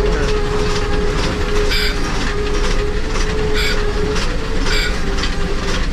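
Steam locomotive running slowly, heard from inside its cab: a steady mechanical rumble and rattle, with a steady humming tone that fades out about four seconds in. Three short high squeals come through, about two seconds, three and a half and five seconds in.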